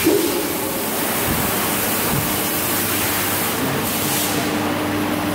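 Automatic band-saw toilet-roll log cutter running after being started: a loud, steady hiss of machine noise, with a steady hum joining in about three and a half seconds in.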